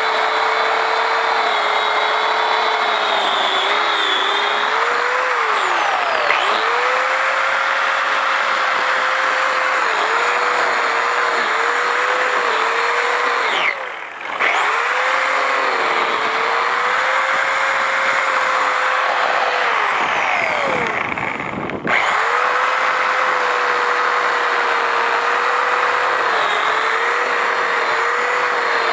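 Portland electric pole saw running and cutting through pine branches, its motor whine dipping in pitch each time the chain bogs into the wood. Twice, about halfway through and again about two-thirds through, the saw is let off and briefly winds down before speeding up again.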